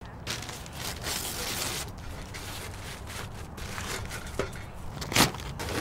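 Rustling and scraping while a metal charcoal chimney starter is handled and set up, with a sharp knock about four seconds in and a louder knock a little after five seconds.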